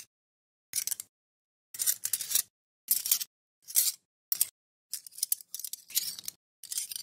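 Silverware foley recordings previewed one after another: metal cutlery clinking and rattling in brief snippets, each cutting off abruptly into silence before the next starts. The last few snippets run longer.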